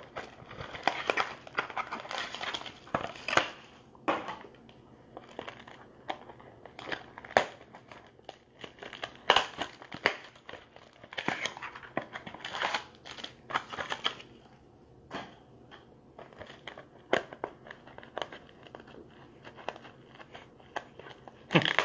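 A wrapped trading-card mini-box being handled and opened: irregular crinkling and crackling of the plastic wrap and cardboard, with scattered sharp clicks.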